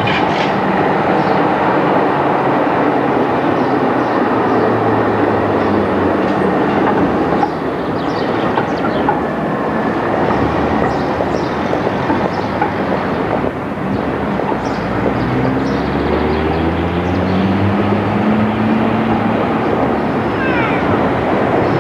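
Articulated electric trams running along street track: steady rumble and clatter of the wheels on the rails, with the traction motors whining and rising in pitch as a tram pulls away partway through. A brief high wheel squeal near the end as a tram takes a curve.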